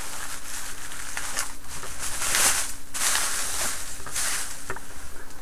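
Packaging being handled and unwrapped: a run of irregular rustling and crinkling swishes with a few sharp clicks.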